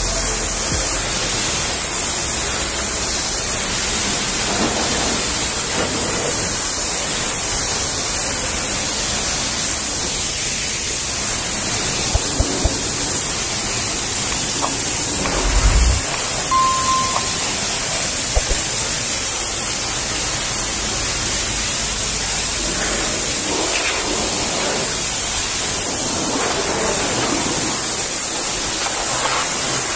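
High-pressure water jet from a pressure-washer lance hissing steadily as it rinses the panels and chassis of a semi-truck cab.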